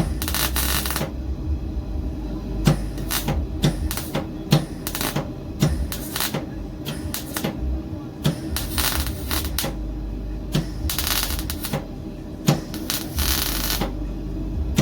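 MIG welder arc crackling and sputtering in irregular runs of sharp pops, with a few brief pauses, over a steady low hum from the welding machine.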